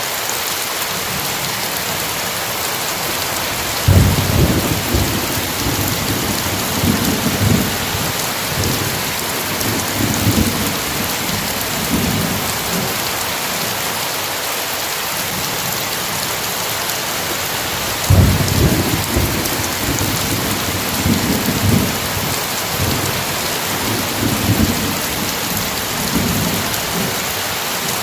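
Steady heavy rain with two rolls of thunder. One starts suddenly about four seconds in and the other about eighteen seconds in, each rumbling on in waves for several seconds.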